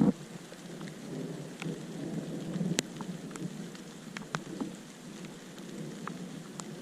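Rain falling steadily, with many separate drops ticking sharply on a hard surface.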